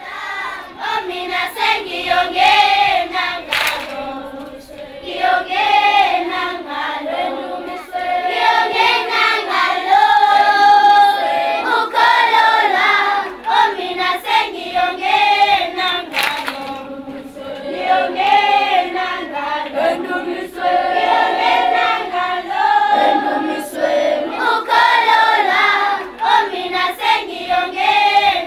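A group of voices singing together in chorus, with a few sharp hand claps.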